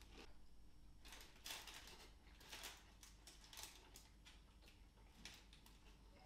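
Near silence: quiet room tone with several faint, brief rustles spread through, such as a paper food wrapper being handled.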